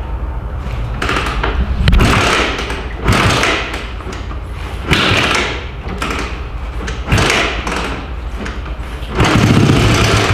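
Old Honda FourTrax 250 four-wheeler's engine being tried again and again to start. There are about six starting strokes a second or two apart, each a thump with a short burst of the engine turning over; the last is the longest. The engine does not catch and run.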